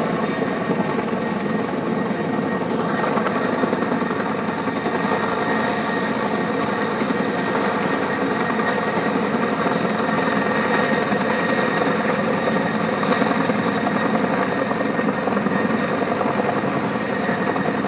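Heavy-lift helicopter running steadily overhead: a rapid, continuous rotor beat with a steady high whine.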